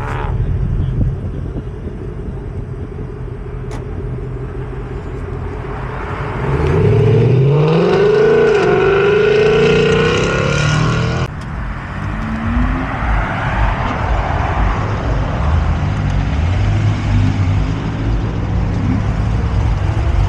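Ford Mustang's exhaust rumbling as it pulls out, then revving hard as it accelerates away, its pitch rising for several seconds from about six seconds in. After a sudden cut, another car's exhaust rumbles, and it starts to rise again just at the end as a Chevrolet Camaro pulls out.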